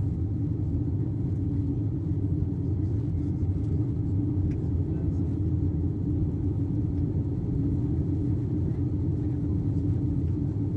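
Cabin noise inside an Airbus A320 climbing after takeoff: a steady low rumble from the engines and airflow, with a steady hum on top.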